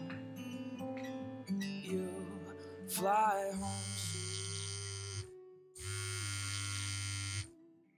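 Acoustic guitar music with plucked notes. In the second half a steady buzzing tone sounds twice, each for under two seconds, with a short break between.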